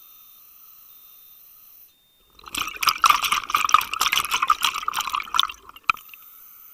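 Scuba regulator exhaust heard underwater: a loud burst of exhaled bubbles crackling and gurgling for about three seconds, starting about two and a half seconds in. A faint steady high whine sits underneath before and after the bubbles.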